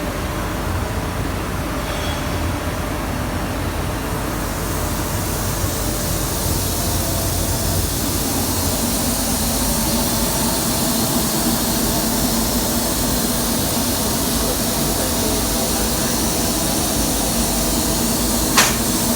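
Bodor P3015A fiber laser cutting machine running with a steady mechanical hum. A high hiss builds about four seconds in and holds, and a single sharp click comes near the end.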